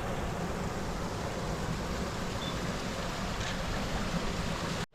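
Water pouring over a small rock waterfall of about a ten-foot drop into a pool: a steady rushing noise that cuts off abruptly near the end.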